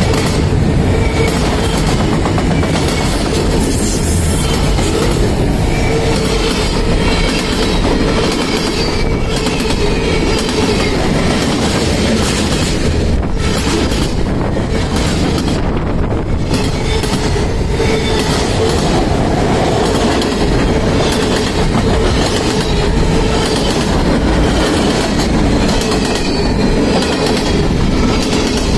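Railroad cars rolling past, their wheels clattering and banging over a really bad spot in the track, with a steady squeal-like tone underneath.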